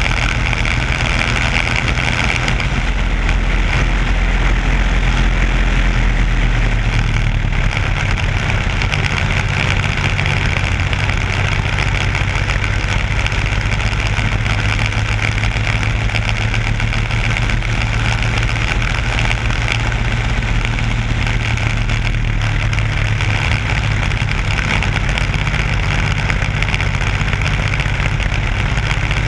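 Briggs & Stratton Animal four-stroke single-cylinder kart engine running at race speed, a steady drone, with wind rushing over the onboard microphone.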